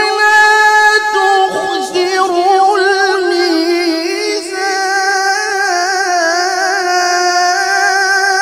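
A man reciting the Qur'an in a melodic, chanted style, drawing out one long vowel through the whole stretch with a wavering, ornamented melody.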